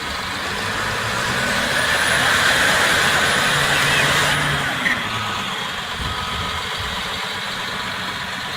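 Heavy diesel engines of a CAT 320 excavator and a CAT D6 bulldozer running. About two seconds in they work harder and get louder, with a high whine, for two to three seconds. They then ease back to steady running, with a short sharp knock about five seconds in.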